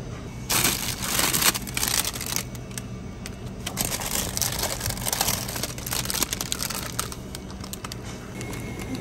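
Crinkly plastic pastry wrappers rustling in irregular bursts as packaged cakes are picked off a chilled shelf and handled, over a low steady hum.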